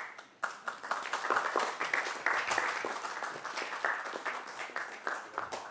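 Audience applauding. The clapping builds up within the first second and thins out near the end.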